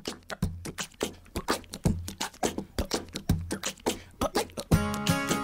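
Intro music: a rhythmic beat of quick clicks and low thumps, with sustained chords joining near the end.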